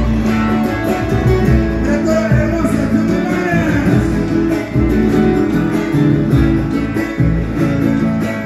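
Live Argentine folk music from a guitar-based group: strummed guitars with singing.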